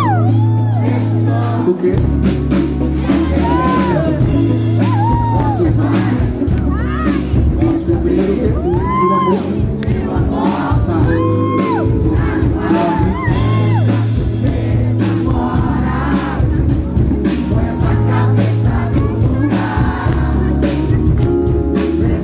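Live band music over a loud PA, with a man singing into a handheld microphone over held bass notes, drums and electric guitar.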